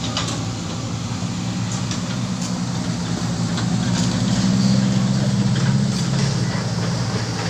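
Komatsu hydraulic excavator's diesel engine running steadily, swelling louder between about four and six seconds in, with a few faint clanks.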